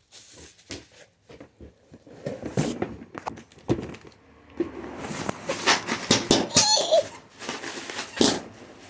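Cardboard box and plastic packaging being handled and opened: a string of short clicks, taps and rustles. A brief high-pitched voice sounds about six to seven seconds in.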